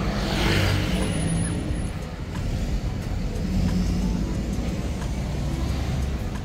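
Low, steady engine rumble, with a louder rushing swell about half a second in.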